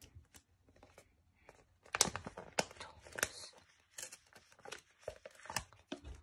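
Glossy paper sticker sheets crinkling and rustling as they are handled and flipped over a magazine page, with irregular sharp crackles, the loudest about two and three seconds in.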